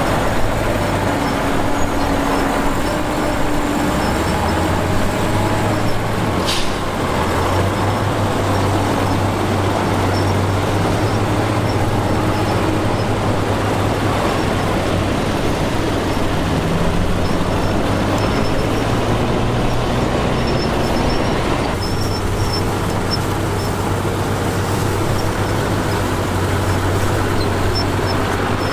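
Heavy diesel engines of earthmoving machinery, a bulldozer and dump trucks, running steadily with a continuous low drone.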